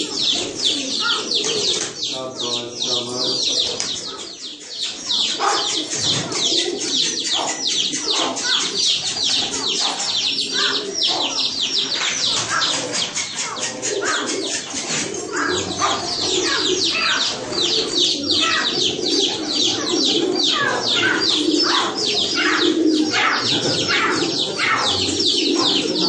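A flock of pigeons cooing in a low murmur, over a constant dense chatter of high chirps from many birds.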